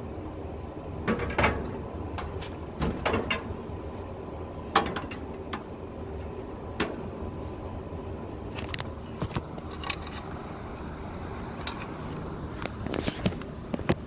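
Scattered clicks and light knocks from test leads and tools being handled against a rooftop HVAC package unit while the condenser fan motor is tested, over a steady low hum.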